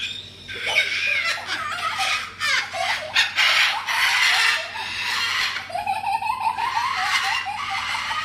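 White cockatoo making loud, laughter-like calls: a harsh, squawky stretch in the middle, then a quick run of short, rising 'ha-ha' notes near the end.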